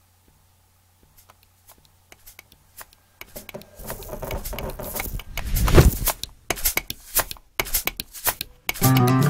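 Small hard pieces clicking and rattling on a wooden surface, starting as a few scattered ticks and building into a dense, fast clatter. Music begins just before the end.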